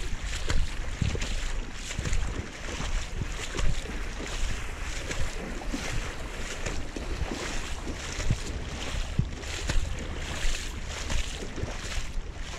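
Legs wading through floodwater, with irregular repeated splashing, while wind rumbles on the microphone.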